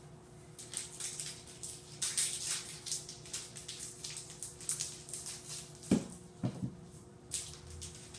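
Packaging of mini ice cream bars crinkling and rustling in irregular bursts as the bars are unwrapped by hand, with two dull knocks about six seconds in.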